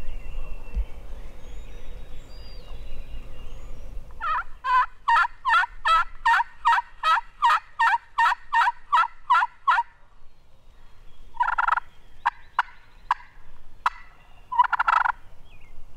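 Turkey yelps: a run of about fifteen evenly spaced notes over some six seconds, followed a little later by two short gobble-like bursts with a few sharp clicks between them.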